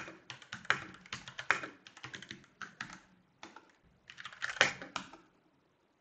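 Typing on a mechanical keyboard with brown switches about an arm's length from the microphone, picked up through a Bluetooth headset's microphone. Irregular runs of key clicks stop about five seconds in.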